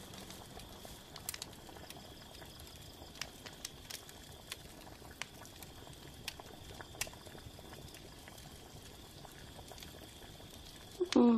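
Quiet background with a faint steady hiss and soft clicks and crackles at uneven intervals, about a dozen in all. Near the end a loud, low humming tone with overtones cuts in.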